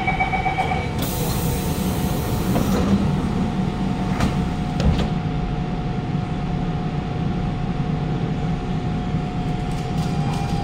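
Siemens C651 metro train standing at the platform as its doors close: a short burst of air hiss about a second in and two knocks around four to five seconds in, over the steady hum of the train's equipment with a held tone.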